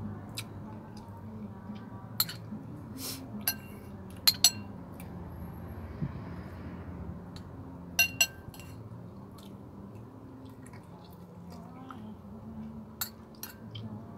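Metal spoon clinking and scraping against a metal plate during eating: scattered sharp clinks, some in quick pairs, with quiet chewing. A low steady hum runs underneath.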